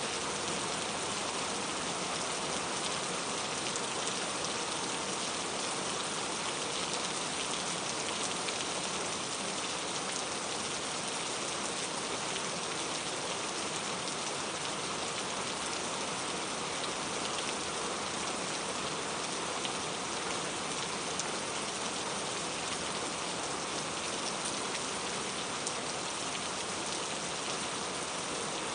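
Steady rain falling on a surface, a dense even patter with scattered individual drops.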